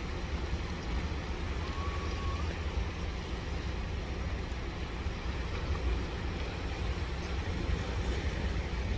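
One short whistle about two seconds in, slightly rising: a Jeju haenyeo diver's sumbisori, the whistling breath let out on surfacing. It sits over a steady low rumble and the wash of the sea.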